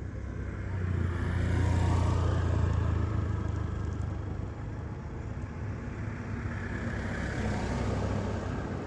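Motor vehicle passing on the road close by: engine and tyre noise swell to loudest about two seconds in and fade away, and another vehicle approaches near the end.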